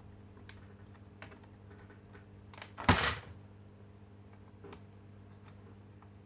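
Scattered light clicks and taps, with one louder, brief clack about three seconds in, over a steady electrical hum.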